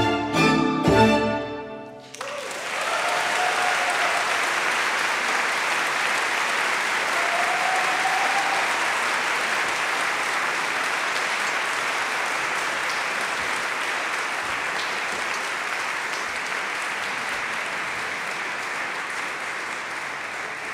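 A string orchestra ends the piece on a few sharply bowed, rhythmic chords that stop about two seconds in. An audience then breaks into steady applause with a few brief calls from the crowd, and the applause slowly fades.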